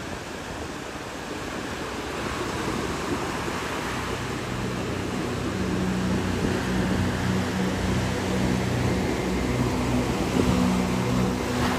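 Ocean surf and wind rushing steadily. A low, steady hum of several tones comes in about four and a half seconds in and grows slowly louder.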